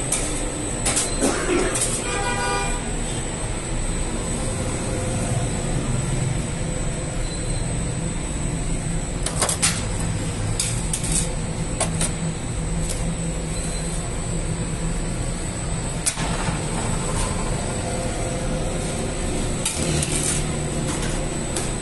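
Bakery machinery running with a steady hum, with scattered clicks and knocks. A short horn-like tone sounds about two seconds in.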